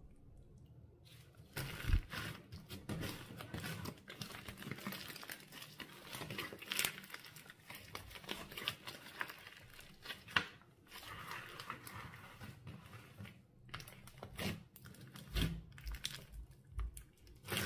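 Slime being squished, stretched and pressed by hand, giving a dense crackling of small clicks and pops from trapped air. It starts about a second and a half in, with a few louder pops along the way.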